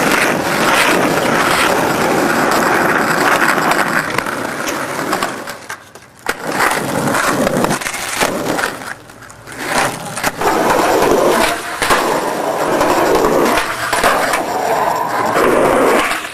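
Skateboard wheels rolling on rough asphalt with a steady grinding rumble, broken by sharp knocks of the board's deck and wheels hitting the ground; it drops quieter twice, around six and nine seconds in.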